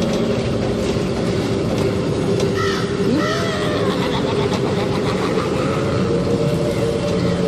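Steady wind-like rushing ambience with a low, even hum under it. A few short calls, caw-like, come about three seconds in.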